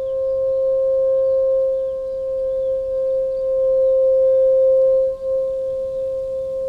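Bukkehorn, a goat horn, holding one long steady note with a brief dip in loudness about five seconds in.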